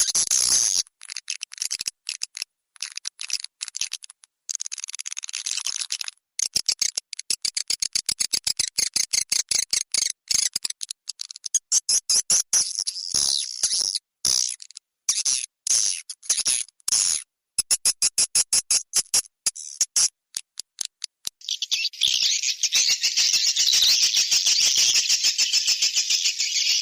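Swiftlet lure call recording: rapid trains of high twittering chirps broken by short pauses, turning into dense, unbroken chirping about 21 seconds in. It is a call sound played to draw swiftlets into a swiftlet house.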